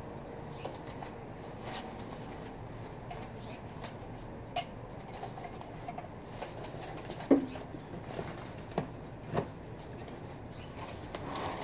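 Handling noises of unpacking: plastic wrapping rustling and a few scattered light knocks and clicks as the new outboard's tiller handle and its cables are unwrapped and turned over, the sharpest knock a little past halfway.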